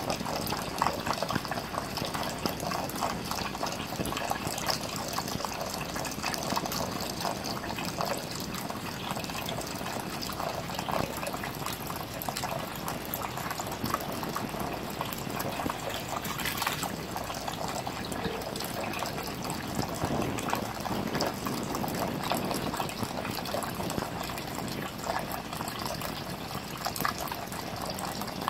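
Thin stream of tap water running steadily into a bathroom sink, splashing at the drain with small scattered patters.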